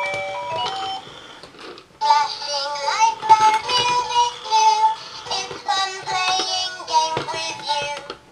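Electronic musical activity ball toy playing a short beeping electronic tune, then a children's song in a synthesized sung voice, as it rolls across the floor.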